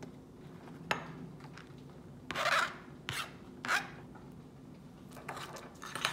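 A sharp tap about a second in. Then a knife blade scrapes across a plastic cutting board three times, the first scrape the longest and loudest, pushing chopped garlic and chili into a bowl. Softer scraping near the end as a spoon stirs thick sauce in a ceramic bowl.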